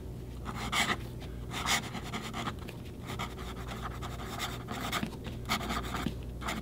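Fountain pen nib scratching across paper in short, irregular strokes as words are written by hand.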